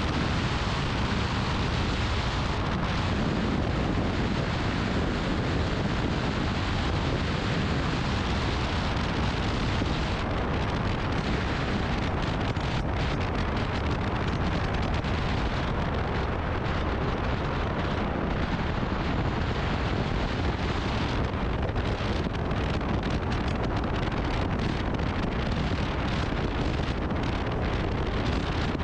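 Wind rushing steadily over the microphone of a moving motorcycle, with road and engine noise blended in underneath.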